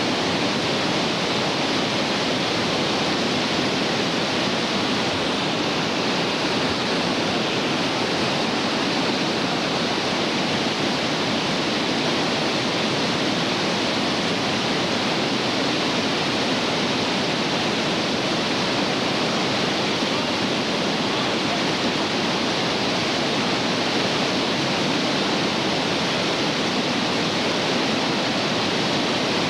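Whitewater rapids rushing over rocks: a steady, even wash of water noise.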